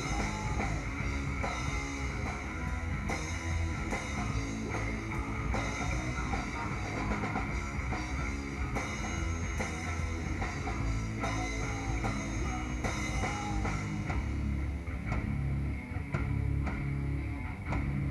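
Stoner rock band playing live: a drum kit with crashing cymbals over heavily distorted electric guitar and bass. About three quarters of the way through, the cymbal wash drops back and the low end grows heavier, with single drum hits standing out.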